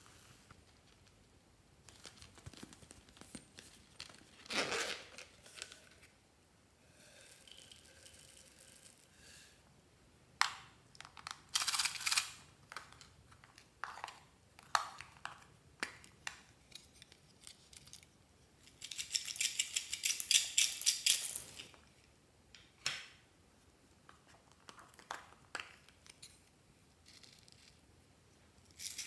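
Small plastic toy containers handled and clicked open, with foam beads and sprinkles shaken out of them: scattered clicks and short rattling pours, one longer pour about two-thirds through.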